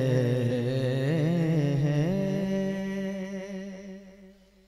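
Male voice singing a devotional manqabat, holding a wordless note that wavers through quick ornaments for about two seconds. It then settles on one steady pitch and fades out near the end.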